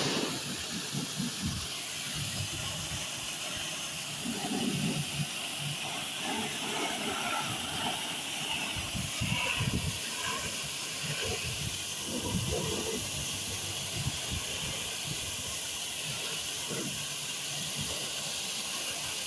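A steady hiss throughout, with faint irregular low knocks and bumps underneath.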